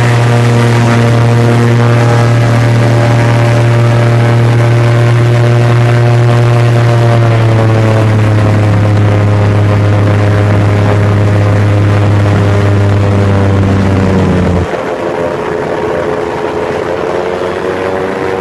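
Small airboat's V8 engine and propeller running at speed, a loud steady drone. Its pitch sags slowly in the second half and picks up slightly near the end; about three-quarters through, a deep low hum underneath cuts out suddenly and the sound gets a little quieter.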